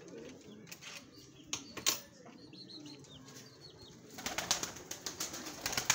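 Pigeons' wings flapping in a wire-mesh coop as its door is opened. A few sharp knocks of the wooden door come first. A dense, loud flurry of wingbeats starts about four seconds in.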